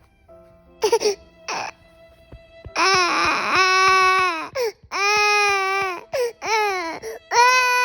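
Baby of about eight months crying hard on waking from a nap, which the parent puts down to a nightmare: two short sobs, then long wailing cries one after another with catches of breath between them. Soft background music runs under it.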